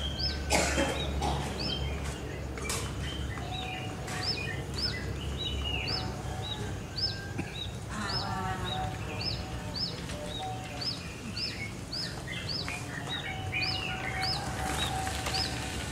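Birds chirping in the open air: one bird repeats a short high chirp about every half second to second, with other birds calling lower and a rising trilled call about eight seconds in. Near the start there is a brief loud noise, and a low hum fades out about six seconds in.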